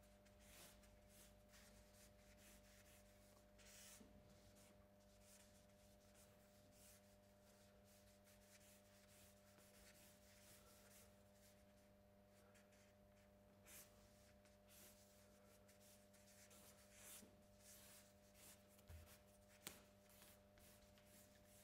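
Faint scratching and rubbing of a dark drawing stick on paper pinned to an easel, in scattered strokes over a low steady hum.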